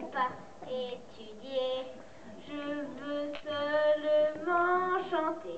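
A young girl singing solo into a handheld microphone: a few short phrases, then long held notes from about two and a half seconds in.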